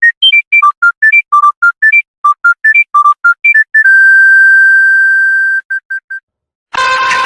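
Mobile phone ringtone: a fast electronic melody of short, pure beeping notes that ends on one long held tone and three quick beeps. A different, fuller ringtone with a plucked-guitar sound starts just before the end.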